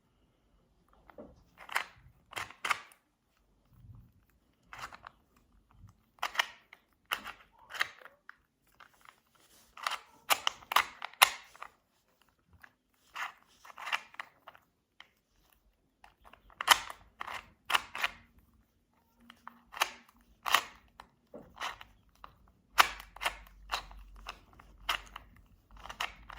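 2x2 Rubik's cube being turned by hand: its plastic layers click and clack in quick runs of turns with short pauses between them.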